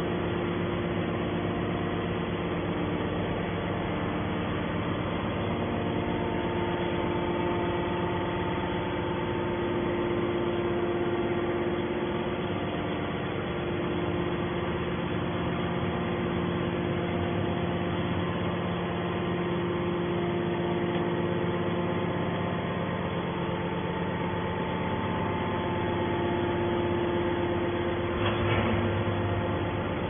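Hydraulic scrap metal baler's pump and electric motor running with a steady hum, with a short clatter near the end.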